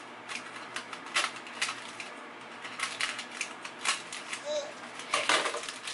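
Irregular light clicks and taps of things being handled in a kitchen, with a louder rustling burst about five seconds in.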